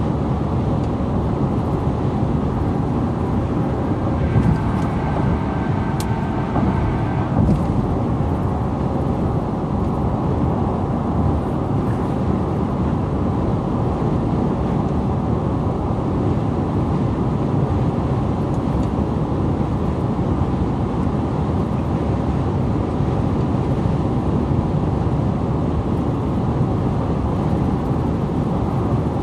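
Steady road and tyre noise with engine hum from a car cruising at highway speed, heard from inside the cabin as an even low rumble.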